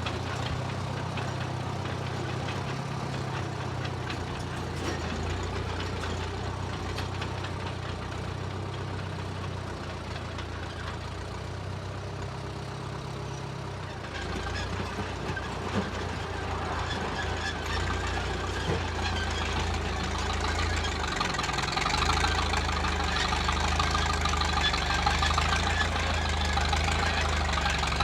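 Engine of a 1934 Caterpillar crawler bulldozer running steadily. About halfway through it changes note and gets busier, and it grows louder near the end as the dozer works harder.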